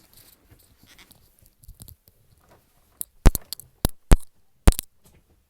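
Hard objects being handled and knocked together: faint rustling, then a quick run of about five sharp clacks in the second half.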